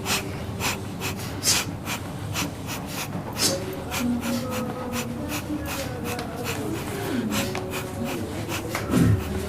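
A person breathing in quick, noisy puffs, many short breaths at an uneven pace. A faint, low, wavering hum of a voice sits under it from about three and a half seconds to about eight seconds in.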